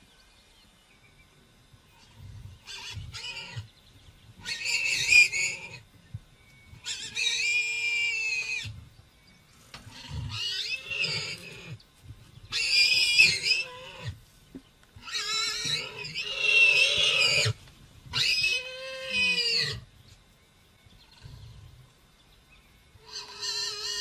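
Warthog squealing in distress as a lion digs at it in its burrow: about eight loud, shrill squeals, each a second or so long, with short pauses between them.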